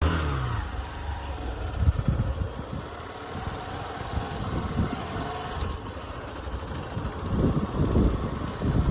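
Wind buffeting the microphone: a low rumble with irregular gusts, stronger near the end.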